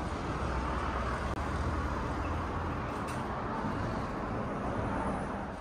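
Steady city street ambience: a continuous hum of road traffic.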